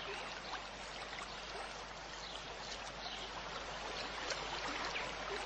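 Solar two-tier garden fountain running: water trickling and splashing steadily as it spills from the top tier into the bowl below.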